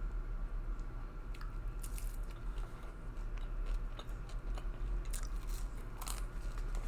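A person chewing and biting into French fries, with scattered small crunches and wet clicks of the mouth.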